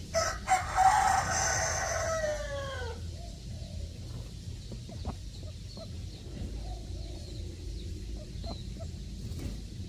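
A rooster crowing once, a long call of about three seconds that drops in pitch at the end, followed by faint soft calls from the flock.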